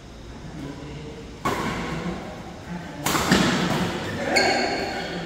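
Badminton rackets hitting a shuttlecock during a rally, two sharp strikes about a second and a half apart that echo in the hall, with a brief high-pitched sound near the end.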